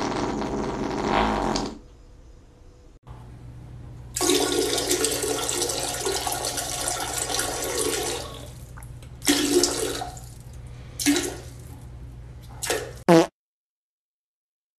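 A series of farts: a loud rough one at the start, a long drawn-out one from about four seconds in, then three short ones, the last bending in pitch, before the sound cuts off.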